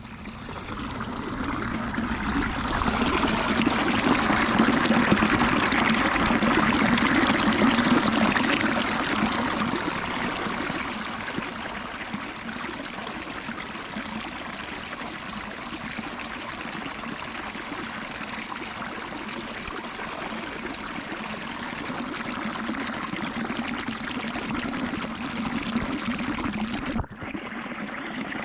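Underwater water-ambience sound effect: a continuous rushing, bubbling wash of water, louder for the first several seconds and then steadier. It breaks off for an instant near the end and picks up again.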